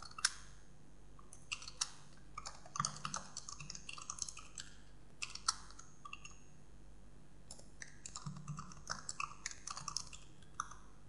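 Computer keyboard keys clacking as a command is typed, in quick runs of keystrokes with short pauses between them.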